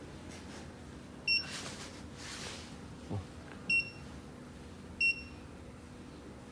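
Three short electronic beeps from a crimp pull tester's control panel as its buttons are pressed: one about a second in and two more a few seconds later, with a soft knock between them.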